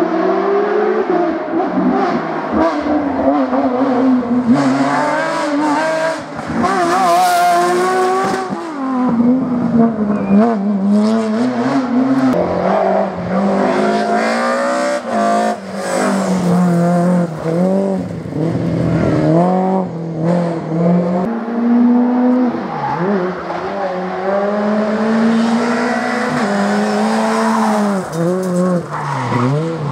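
Rally car engines driven hard through a tight bend, the pitch repeatedly climbing and dropping back with each gear change and lift. An E30 BMW M3's four-cylinder engine, then a Ford Fiesta rally car's engine.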